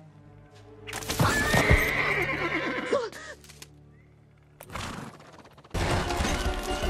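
A horse whinnies loudly about a second in, a long wavering neigh from an animated film's sound track, over background film music. The music comes in loud and full near the end.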